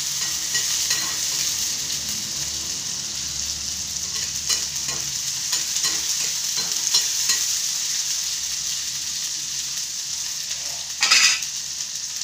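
Onion, tomato and garlic frying in hot oil in a kadhai, a steady sizzle, with a spatula stirring and scraping the pan in small clicks. A louder clatter about eleven seconds in.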